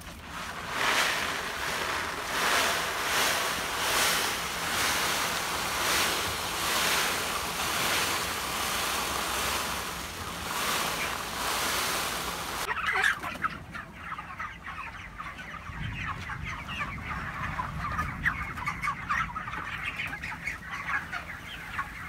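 Pelleted chicken feed rustling and pouring as a hand scoops and stirs it inside a woven plastic feed sack, swelling about once a second. About thirteen seconds in, this gives way to a flock of broiler chickens clucking and peeping, many short calls.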